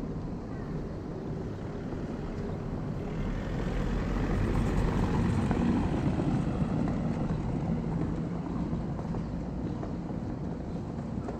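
A passing vehicle: its noise swells about three seconds in, is loudest around five to six seconds, then fades, over a steady outdoor street hum.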